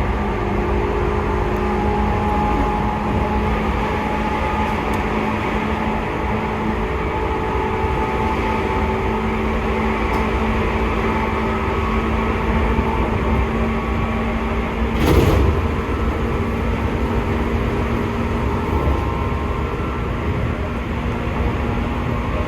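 Seibu 2000 series electric train running steadily at speed, heard aboard: its traction motors and gears give a steady hum of several held tones over the rumble of the running gear. A short clatter cuts in about fifteen seconds in.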